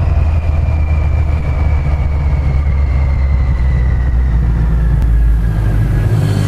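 Motorcycle running at low road speed, heard from on the bike itself: a heavy, steady low rumble with a thin high whine that slowly falls in pitch as the bike eases off.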